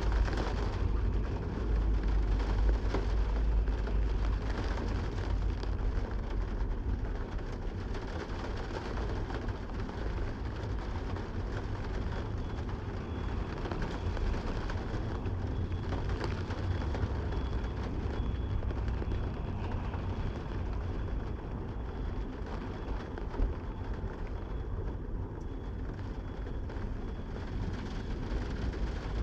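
Steady rain falling, an even hiss with a deep low rumble underneath that swells in the first few seconds and again a little past halfway.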